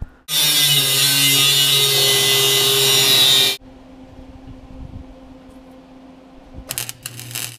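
Flux-core wire-feed welder's arc running steadily for about three seconds on mild steel, welding overhead, then a second short burst of welding near the end, with a low steady hum in between.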